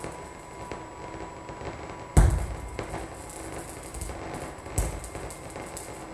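Experimental electronic music: a sparse crackling noise texture with a thin steady tone for the first two seconds, broken twice by a loud, deep thud that rings out briefly, about two and a half seconds apart.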